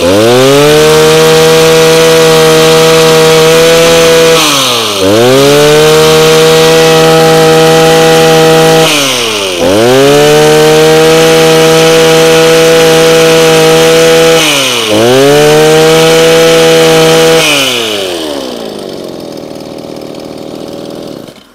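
Mitsubishi TL231 23cc two-stroke brush cutter engine revved to full throttle and held. The throttle is let off briefly three times and the revs sweep back up each time. Near the end the throttle is released and it winds down to a much quieter idle.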